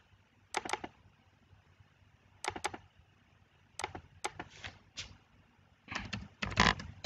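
Computer mouse clicking: a few single and double clicks spaced out over several seconds, then a quick run of keyboard typing near the end.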